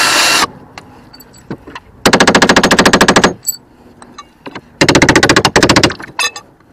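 Cordless drill running steadily and stopping about half a second in, then two bursts of about a second each of rapid, even rattling as it works at the sliding-door roller bracket, with light metal clinks in between and near the end.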